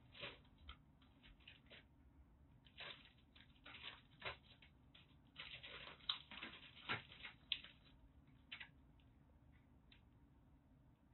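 Faint, scattered rustles and light clicks of a kitten shifting about on newspaper inside a wire box trap. The sounds are busiest for a few seconds around the middle.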